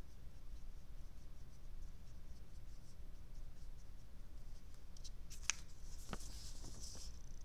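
Faint scratching of a Zebra brush pen's tip stroking across paper. About five seconds in come a sharp click and paper rustling as the sheet is picked up and handled.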